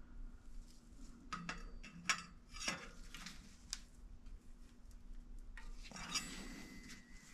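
A metal tool clicking and clinking against a bicycle disc brake rotor as the warped rotor is bent straight by hand, several sharp clinks in the first half, then a short scrape near the end.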